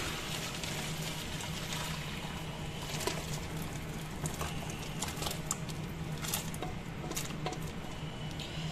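Hot water poured from a steel pot into a plastic colander to drain parboiled potato fries. From about three seconds in, the fries slide and drop into the colander with scattered light knocks and clatters.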